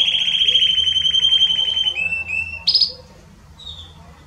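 Belgian canary singing: a fast, even trill on one high pitch held for about two seconds, then a few short notes and one sharp, louder high note. After that the song falls away to faint, scattered chirps.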